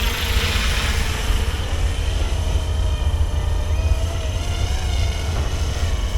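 RC helicopter tail propeller spinning steadily, its faint tone wavering slightly in pitch over a heavy low rumble, with a brief rush of hiss in the first second.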